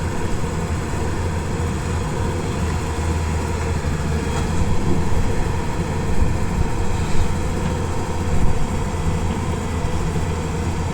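JCB backhoe loader's diesel engine running steadily, with a low, even drone and a few brief louder moments in the second half.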